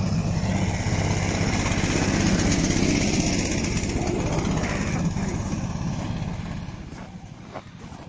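Small engine of a motor-dog (a motorized tracked towing unit for sleds) running steadily under way, then fading off in the last two seconds.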